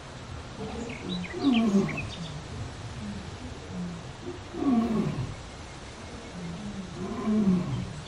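A large wild animal calling: three deep, growling calls about three seconds apart, each falling in pitch, with softer calls between them. A few short bird chirps come about a second in.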